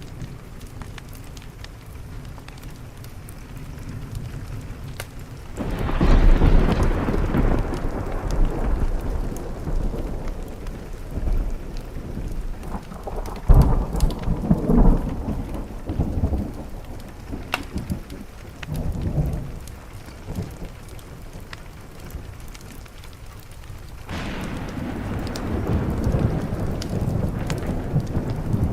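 Steady rain on a window with a thunderstorm. A long roll of thunder swells in about six seconds in, peaks and fades over roughly fifteen seconds, and a second roll starts near the end. Sharp little crackles of a wood fire are scattered through.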